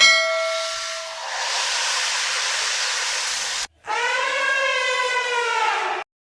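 Elephant trumpeting: a short blast, then a long breathy hiss, and after a sudden break a second pitched call that rises and falls slightly in pitch before cutting off abruptly.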